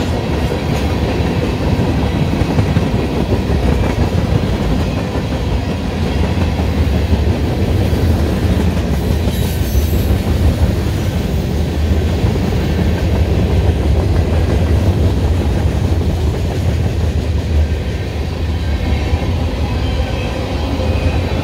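Freight cars of a mixed manifest train, tank cars and covered hoppers, rolling past close by: a steady, loud rumble of steel wheels on the rails.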